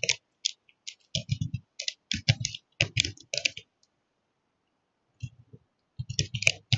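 Typing on a computer keyboard: quick runs of key clicks, stopping for about a second and a half past the middle before picking up again.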